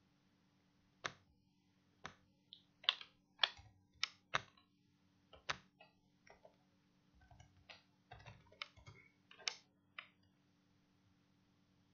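Computer keyboard keystrokes and mouse clicks, a couple of dozen irregular taps between about one and ten seconds in, while a login form is filled in. A faint steady low hum sits underneath.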